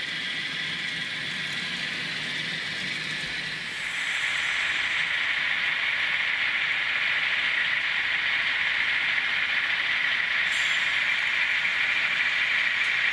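N scale Kato model container train running on the track: a steady hiss of small wheels on rail and motor, growing louder about four seconds in.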